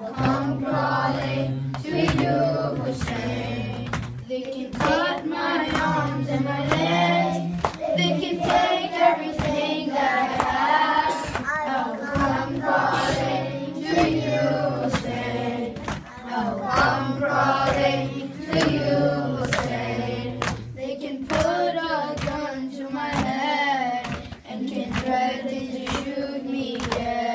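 Boys' voices chanting a noha, a Shia mourning lament, with a group joining in, over a steady beat of hands striking chests in matam.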